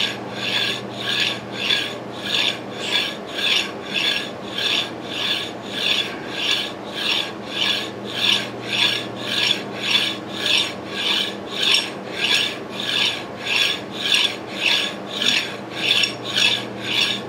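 Maytag 92 engine connecting rod rubbed back and forth across a flat file, rasping in an even rhythm of about two strokes a second. The rod is being filed down to take up its worn, egg-shaped big end.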